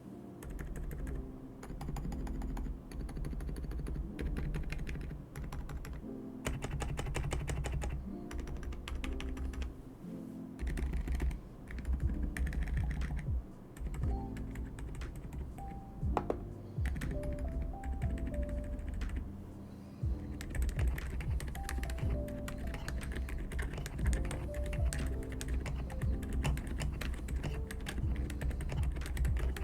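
Typing on a mechanical keyboard fitted with unlubed Outemu Silent White switches in a foam-filled GMK67 case, rapid keystrokes throughout, with background music.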